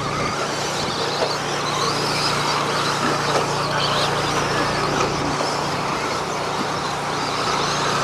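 A pack of radio-controlled racing trucks running on a dirt track: a steady wash of small-motor whine and tyre noise, with a steady low hum underneath.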